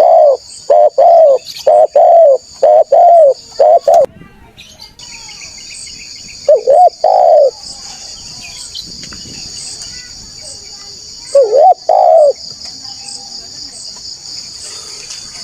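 Spotted dove cooing. A quick run of short coos in the first four seconds, then a couple of longer coo phrases around seven and twelve seconds in. A steady high insect drone runs in the background.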